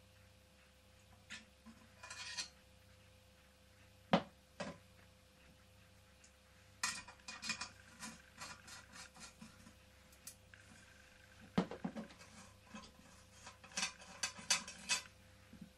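Scattered metallic clicks, taps and rattles from hands working on small toy steam engines' metal boilers and fittings: a sharp click about four seconds in, then clusters of quick clinks. A faint steady hum runs underneath.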